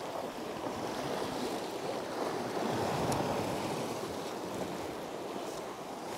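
Sea waves washing against the rocks below, with wind on the microphone. The surge swells a little around the middle.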